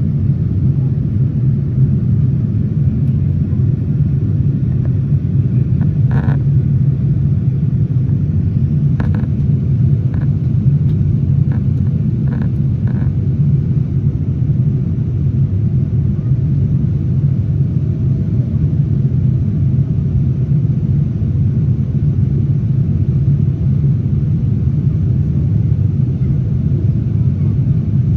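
Steady low rumble of airflow and engines heard inside the cabin of a Boeing 787-9 airliner in flight. A few faint short clicks come in the middle.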